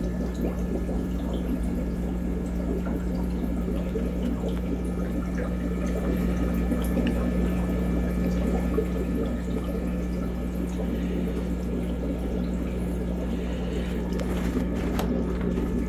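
Aquarium water running and trickling steadily over a constant low electric hum, with a few faint clicks near the end.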